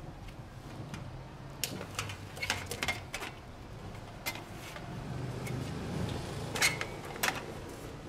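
Sharp clicks and rattles of plastic and metal parts being handled as wiring and the control circuit board are pulled from an air conditioner's outdoor unit: a run of clicks a couple of seconds in, a single one in the middle and two louder ones near the end, over a steady low hum.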